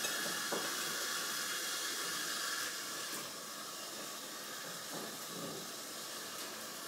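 Steady hiss from a rice cooker of heated water, with a few faint knocks as broccoli pieces are put into it.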